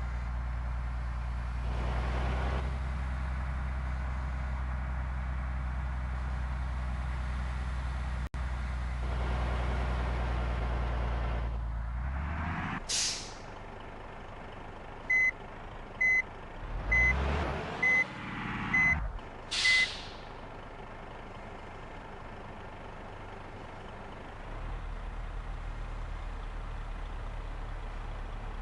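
Heavy bus diesel engines idling, with a sharp air-brake hiss about thirteen seconds in and again about seven seconds later. Between the two hisses a reversing beeper sounds six times, about once a second.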